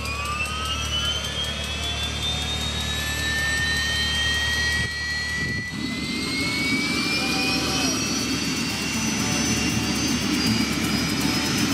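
Astar helicopter's turboshaft engine starting up: its turbine whine climbs steadily in pitch as it spools up. About halfway through, a rougher rumble joins it while the rotor begins to turn.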